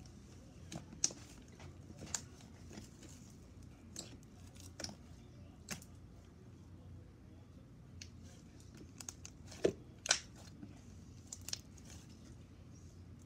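Thick white slime being kneaded, poked and stretched by hand, giving irregular sticky pops and crackles, with the two loudest pops close together about ten seconds in.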